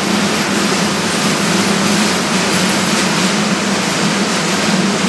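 Train passing on the tracks: a steady rushing noise with a constant hum under it that does not let up.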